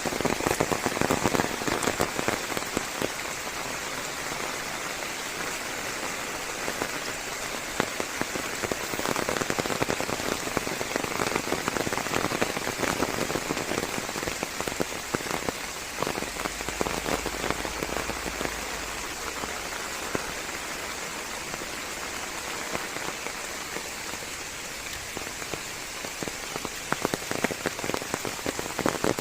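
Steady rain falling on leaves, a dense patter of drops that is heavier near the start and again near the end.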